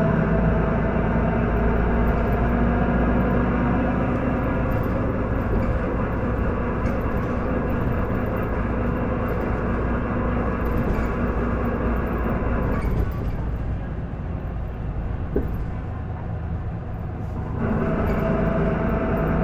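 Isuzu Erga PDG-LV234L2 city bus heard on board: its diesel engine pulls hard under load with a stack of steady tones, eases off about 13 seconds in, and comes back on about four and a half seconds later. This particular bus makes an abnormal noise that it did not make when new.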